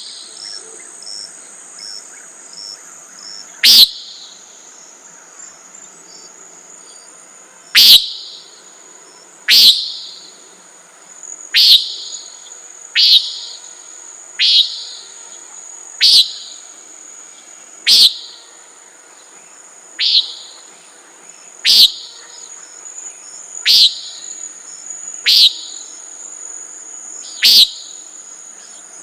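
Common nighthawk giving its short, nasal peent call over and over, thirteen calls spaced about one and a half to four seconds apart, over a steady high drone of crickets.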